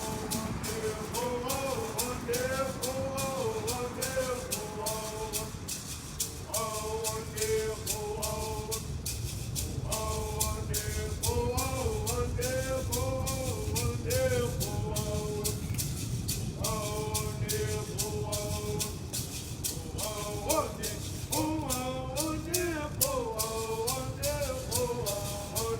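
A voice singing a chant in repeated phrases, to a rattle shaken in a steady beat of about three strokes a second.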